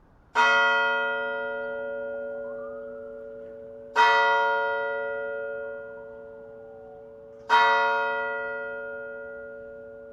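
A single church bell tolling as a call to prayer, struck three times about three and a half seconds apart, each stroke ringing on and fading slowly.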